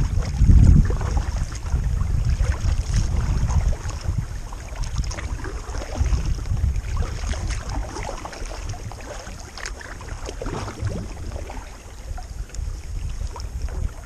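Wind buffeting the kayak-mounted camera's microphone as a low rumble, heaviest in the first few seconds and then easing. Light splashes of paddle strokes and water lapping at the kayak hull run through it.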